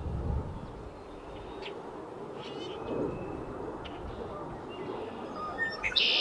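Male red-winged blackbird singing: a few faint short notes, then a loud buzzy trill near the end. A low rumble sits underneath in the first second.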